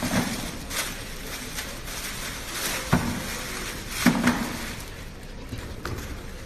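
Handling noise from a plastic toolbox wrapped in a plastic bag: the bag rustles, and the box knocks against the floor and a cardboard carton. Two sharper knocks come about three and four seconds in.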